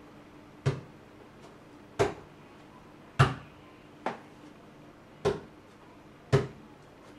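The body of a guitar being struck like a drum: six short knocks, about one a second, played as kick-drum sounds to be sampled.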